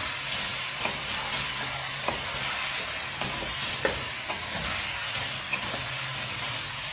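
Cubed boneless chicken sizzling steadily as it is sautéed in oil with spices, stirred with a wooden spatula. The spatula scrapes the pan and knocks against it a few times, loudest just before four seconds in.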